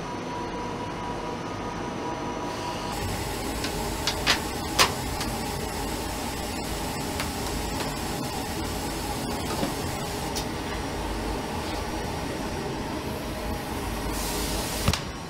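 Car assembly-plant noise: a steady mechanical hum, with two sharp clicks about four to five seconds in and a short burst of hiss near the end.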